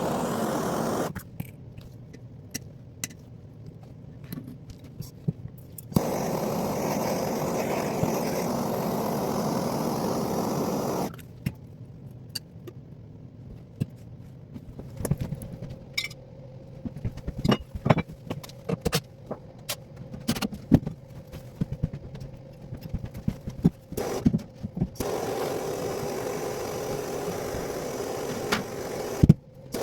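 A motor-driven tool running in three steady stretches of a few seconds each, with knocks, clicks and scraping between them.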